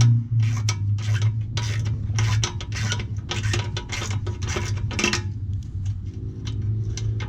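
Irregular metallic clicking and scraping of hand tools working an 8 mm bolt out of a scooter's fuel-tank bracket, over a steady low hum.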